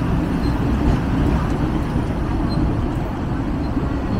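Hong Kong double-decker tram running along its tracks: a steady low rumble of wheels on rails and motor.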